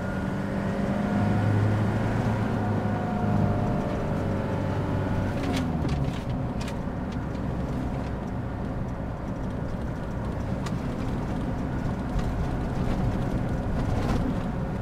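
Cab interior of a 1998 Toyota Toyoace truck under way: its 3L four-cylinder diesel engine running steadily along with road and tyre noise. About six seconds in the engine note drops away, leaving mostly road rumble, with a few short clicks.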